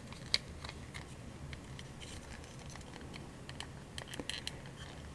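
Faint clicks and scrapes of a plastic figure's foot peg being worked into its plastic stand, with a sharper click about half a second in and a few small clicks near the end.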